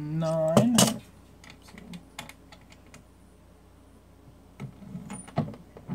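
Small metallic clicks and taps of calipers and a brass cartridge being handled at a reloading bench, with a short hum of a voice at the start. A loud cluster of clicks comes about half a second in, then scattered taps, and more clicking and knocking near the end as the round is set into the reloading press.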